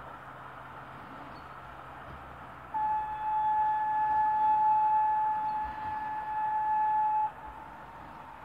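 Steam locomotive whistle blown as one long steady note of about four and a half seconds, starting about three seconds in and briefly dipping before it cuts off, over a low hiss.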